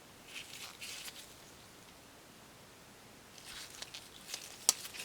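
Faint handling of a folding knife: soft scuffs of hands about half a second in, then more handling with a sharp click near the end.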